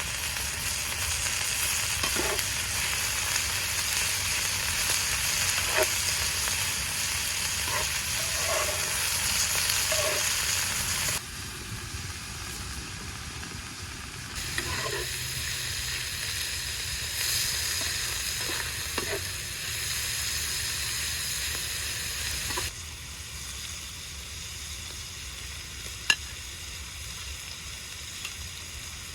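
Food sizzling as it fries in oil in a pan, with a utensil now and then tapping or scraping the pan. The sizzle drops abruptly in level about eleven seconds in and again later, then carries on more quietly.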